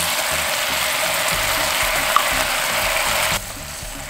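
King oyster mushrooms and sauce sizzling in a hot frying pan, a steady crackling hiss. About three seconds in it drops suddenly to a quieter sizzle.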